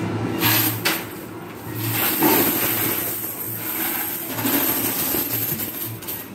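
Amusement-arcade din around coin pusher machines, with coins clattering and a few sharp clinks about half a second in and again after two seconds.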